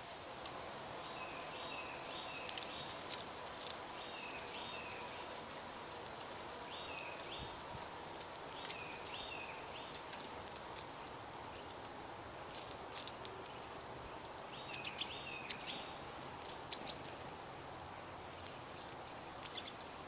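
Small songbirds at feeders calling: short, high notes that dip and rise, in twos and threes, repeated every few seconds. Under them runs a steady hiss, broken by scattered sharp ticks.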